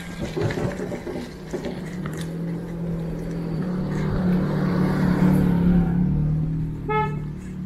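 A motor vehicle's engine running with a steady low hum, growing louder to about five seconds in and then easing off. A short, high-pitched beep near the end.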